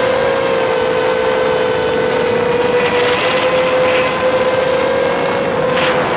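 GEPRC Elegant 7-inch FPV quadcopter's motors and propellers whining at a fairly steady throttle in flight, the pitch sagging slightly early on and then holding. Brief rushes of noise come through about halfway and again near the end.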